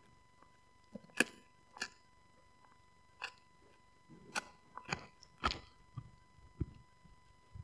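Siberian husky gnawing a rawhide-style chew stick: irregular crisp crunches and clicks of teeth on the chew, a few spaced ones early on, coming quicker in the second half.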